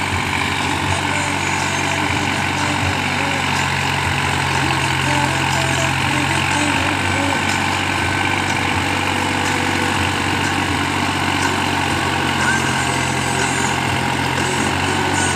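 New Holland 5510 Excel tractor's diesel engine running steadily under load while driving a rotavator through the soil.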